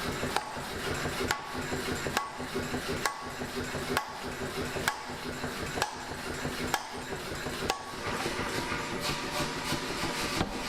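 Hammer blows on hot mild steel at the anvil, about one a second and evenly paced, some leaving a short metallic ring, over a steady hum.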